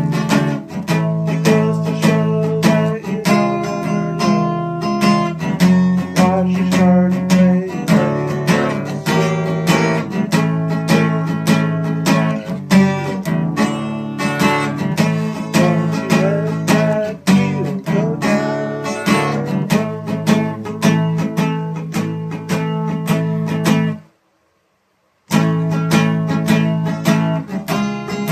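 Acoustic guitar playing an instrumental passage, strummed and picked, with no singing. About 24 s in, the sound cuts out to total silence for just over a second, then the playing resumes.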